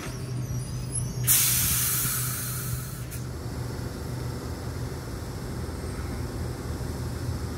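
A train's pneumatic air release: a loud hiss of compressed air lasting about two seconds that cuts off sharply, over a steady low hum.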